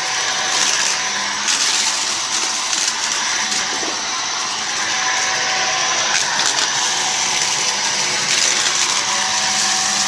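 Shark DuoClean vacuum cleaner running steadily while vacuuming: a continuous rush of air with a constant motor tone, swelling a little now and then.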